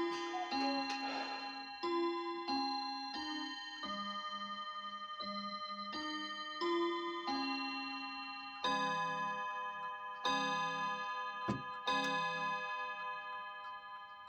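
Kienzle mantel clock chiming: a run of ringing notes, then three heavier, deeper strokes about a second and a half apart, each left to ring and fade. A sharp click falls between the second and third strokes, and the clock's ticking runs underneath.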